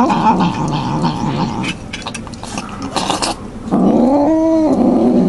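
Domestic cat growling steadily while eating wet food, a food-guarding growl, with short wet clicks from its eating. About three and a half seconds in, the growl swells into a drawn-out moaning call that rises and falls in pitch for about a second.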